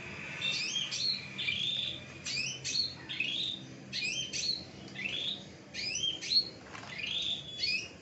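Young cucak ijo (green leafbird) giving repeated high, sharply rising chirps in quick clusters, about one cluster a second.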